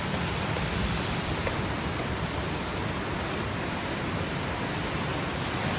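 Ocean surf: a steady rush of waves breaking along the shore.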